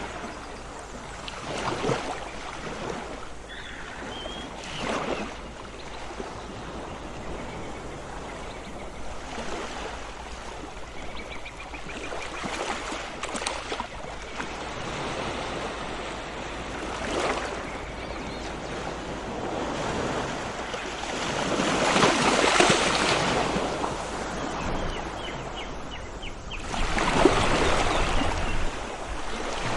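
Sea waves washing onto a shore: a steady surf hiss with separate waves swelling and breaking every few seconds, the loudest about 22 s in and near the end.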